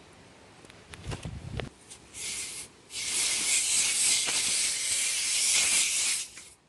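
Knocks and clicks of the compressor's air hose chuck being fitted onto a bike tyre valve, then air hissing out of the valve: a short burst, then a steady hiss of about three seconds.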